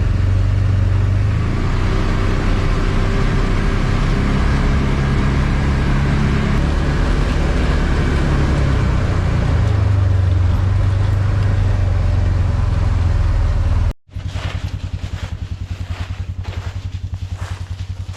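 Ranger utility vehicle's engine running while it is driven, its note rising and falling. About fourteen seconds in, the sound cuts out abruptly and comes back as a quieter, evenly pulsing engine drone.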